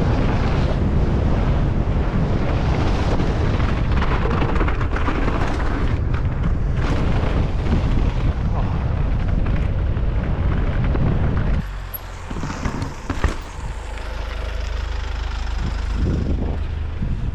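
Wind buffeting the microphone over the rattle and tyre noise of a downhill mountain bike ridden fast down a trail. About twelve seconds in it cuts off sharply to a quieter stretch with a steady low hum and a few knocks.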